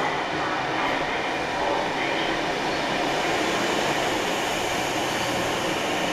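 Electric suburban train at a station platform, a steady noise with no distinct clanks or squeals.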